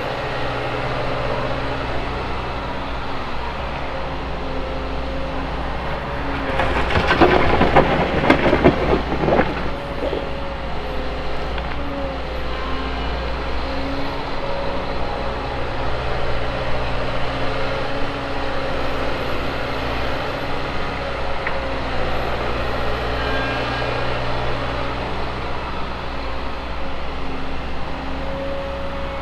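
Liebherr 914 wheeled excavator's diesel engine running steadily under hydraulic work. About seven seconds in, a few seconds of louder crashing and rattling as a bucketful of soil is dumped into the dump truck's steel bed.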